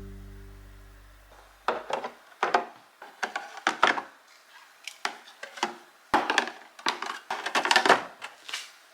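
Plastic refrigerator storage trays and containers being handled and set in place, with irregular clacks, knocks and rattles, some in quick clusters. A music chord dies away during the first second and a half.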